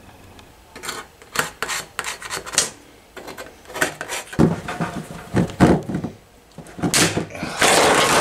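Irregular knocks, clatters and rubbing scrapes of objects being handled, with a longer rasping scrape near the end.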